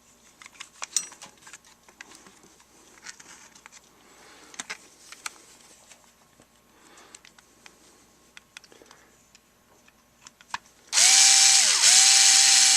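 Quiet handling with scattered small clicks, then about eleven seconds in the Ryobi HP44L cordless screwdriver's motor runs with a loud, steady-pitched whir, stops for a moment with its pitch falling, and starts again; the screwdriver is running again after its repair.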